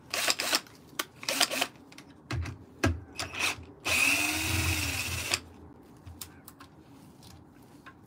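Cordless drill/driver with a hex bit: clicking as the keyless chuck is tightened, then the motor runs for about a second and a half, rising and falling in pitch, as it backs out a pedal-mount bolt on an electric unicycle.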